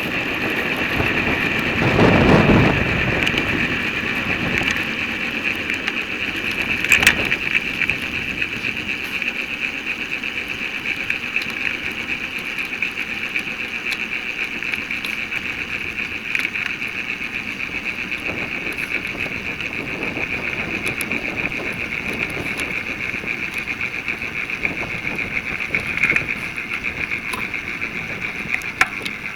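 Bicycle ride audio sped up threefold: wind rumbling on the microphone with a strong gust about two seconds in, over a steady high-pitched buzz, with a few sharp clicks.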